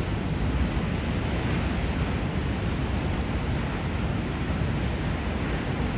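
Ocean surf mixed with wind on the microphone: a steady, even rush of noise, heaviest in the low end, with no distinct events.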